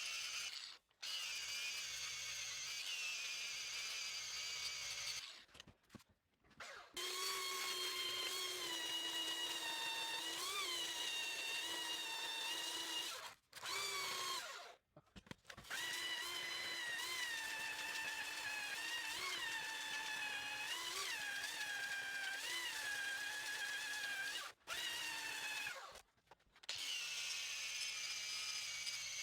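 Power drill motor whining in several long runs, its pitch wavering and dipping, with short stops between runs.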